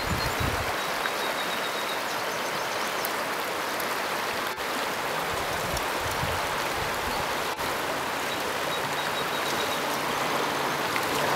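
Fast, shallow river current rushing steadily over and around rocks. A few low rumbles come through near the start and again about six seconds in.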